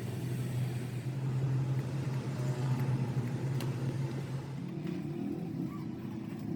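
A motor running steadily with a low hum; about two-thirds of the way through, the hum shifts into a different, more varied pitch pattern.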